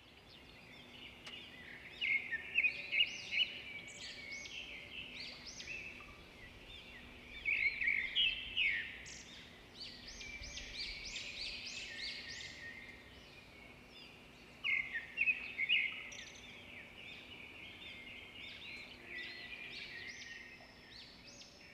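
Birds chirping and singing in several bursts of quick, repeated high notes, with quieter gaps between, over a faint steady low hum.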